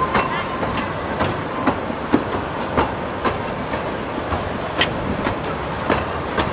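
Train wheels running along the track, clicking over the rail joints about twice a second over a steady rumble, with one sharper click near the middle.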